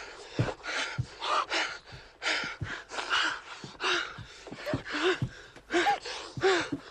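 Heavy, rapid gasping breaths, about two a second, with a few short whimpering voice sounds near the end, from a person being held by force with a hand over the mouth.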